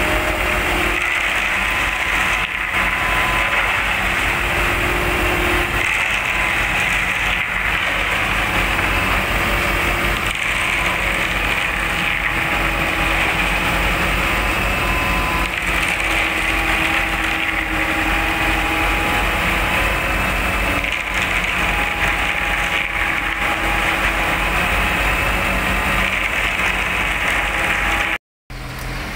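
Excavator and concrete mixer trucks running together: a steady mechanical din of engines and hydraulics, with wavering whining tones over it. It cuts out for a moment near the end.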